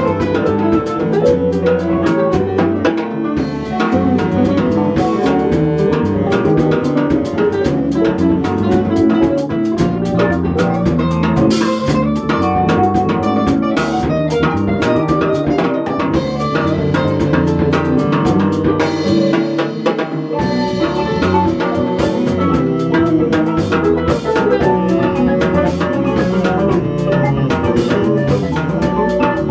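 A small band playing an instrumental jazz jam live: a drum kit with busy cymbal work, electric guitars and electric bass. The bass drops out for about a second around twenty seconds in, then comes back.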